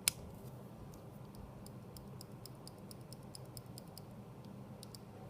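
Uni Shift mechanical pencil's lead-advance button being pressed repeatedly: one sharp click at the start, then a run of faint light clicks, about three to four a second. The lead sleeve slides back with each press, which the owner finds cheap-feeling and suspects may be a defect.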